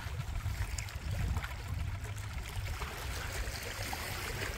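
Small lake waves lapping and trickling among shoreline rocks, with wind rumbling on the microphone.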